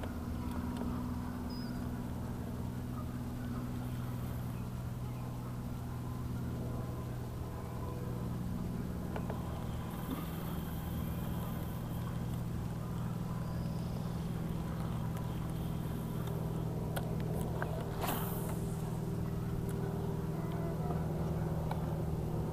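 A motor's steady low hum with several even tones, its pitch shifting slightly about a third of the way in, with a few faint ticks near the end.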